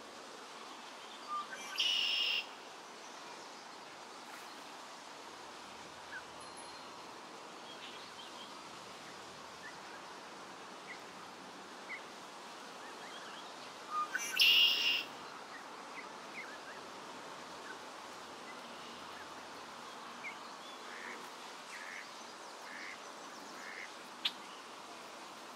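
Poultry calling: two short, loud calls about twelve seconds apart, with faint chirps in between.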